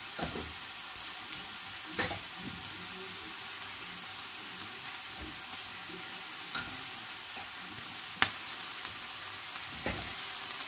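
Marinated pork chops and pork belly sizzling on an indoor tabletop grill: a steady frying hiss with a few sharp pops of spitting fat, the loudest about eight seconds in.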